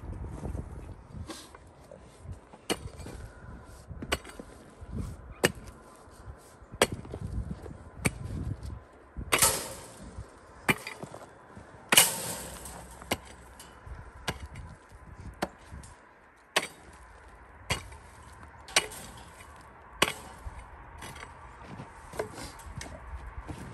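A pickaxe chopping into frozen dirt: sharp, separate strikes about once every second or so, the loudest near the middle.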